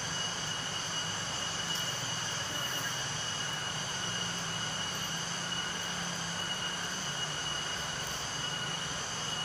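Steady hum of an Asian honeybee (Apis cerana) colony, many bees buzzing in and around their opened nest, with a thin steady high tone above it.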